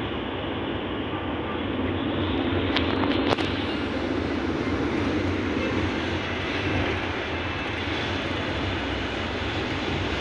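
Steady road and tyre noise inside a moving car's cabin on a wet highway, with a low rumble under it. A couple of short clicks come about three seconds in.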